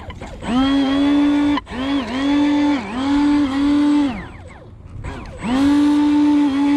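Electric motor of a radio-controlled bait boat run out of the water in throttle bursts: a whine that rises to a steady pitch, holds and drops away. There are three spurts of about a second each, then a longer run starting about five and a half seconds in.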